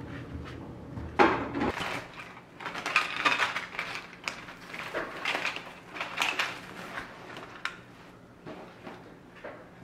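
Household objects being handled and set down: irregular knocks, light clatter and rustling, loudest about a second in and dying down after about seven seconds.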